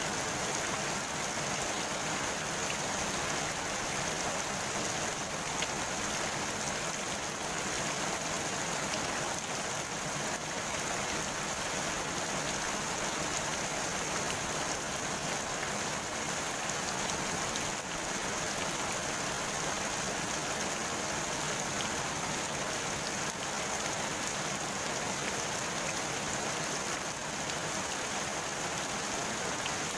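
Steady rain falling on the surface of a pond, an even hiss of drops hitting water with no let-up.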